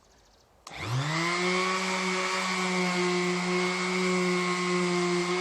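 Electric random orbit sander switched on about a second in, spinning up with a rising whine, then running at a steady speed.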